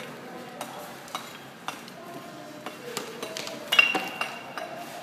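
Bricklayers' steel trowels tapping and clinking against bricks and concrete blocks, scattered sharp clicks at irregular times, with one louder ringing clink about four seconds in.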